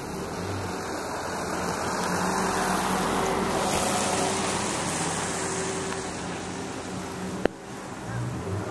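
A car engine running steadily, swelling louder for a few seconds in the middle and then easing off, with a single sharp click near the end.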